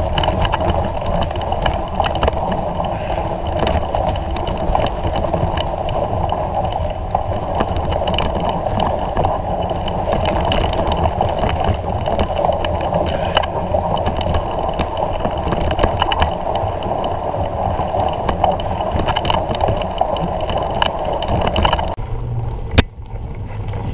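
Surly Long Haul Trucker touring bike rolling through snow: a steady rush of the tyres crunching over the snow, full of small crackles. The rush drops away about 22 seconds in, followed by one sharp click.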